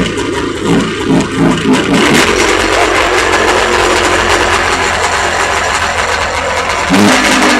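1989 Arctic Cat Wildcat 650 liquid-cooled two-stroke twin snowmobile engine, uneven for about the first two seconds, then running loud and steady, started without choke.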